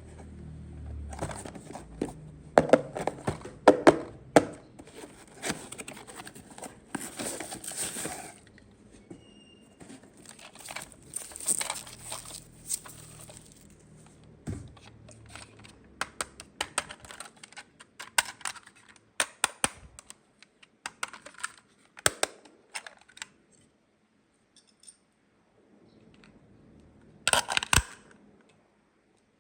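Hands unpacking and handling a plastic toy playset: packaging crinkling and tearing, with many sharp clicks and taps of small plastic pieces. A few louder rustling bursts stand out, and there is a short lull near the end.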